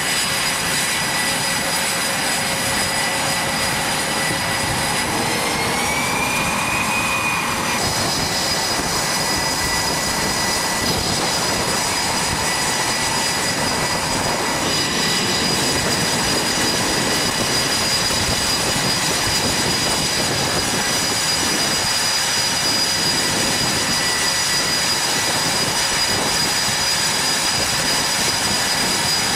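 F/A-18 Super Hornet jet engines running on a carrier flight deck: a steady, loud rush with high whining tones over it. One whine rises in pitch about six seconds in, and the sound changes abruptly at about eight and fifteen seconds.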